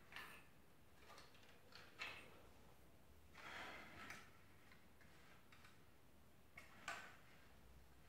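Faint clicks and knocks of plastic LEGO Technic parts being handled as a cargo pod is set under a model helicopter and fitted in place. The sharpest clicks come about two seconds in and near the end, with a longer rustle of handling around three and a half to four seconds in.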